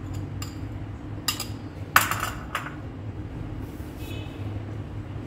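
Metal spoon clinking against glass bowls as melted ghee is scraped into flour: about four sharp clinks in the first two and a half seconds, the loudest about two seconds in.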